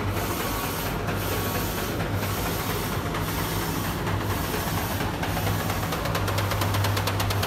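A DTF film printer printing: the print-head carriage shuttles across the PET film about once a second over a steady low hum from the machine. Rapid ticking sets in near the end.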